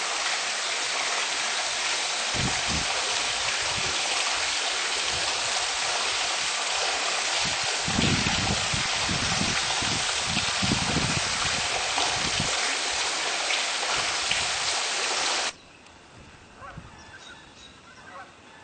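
Steady rush of falling water from a waterfall, with some irregular low rumbling, cutting off suddenly about fifteen seconds in to a much quieter scene with only faint scattered sounds.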